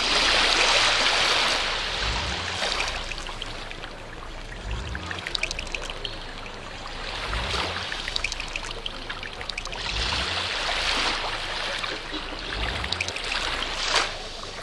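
Electroacoustic montage of processed, looped night-time field recordings: a rushing noise that swells and fades in waves, loudest at the start and again about two-thirds through, over scattered crackling clicks and irregular low pulses, with one sharp click near the end.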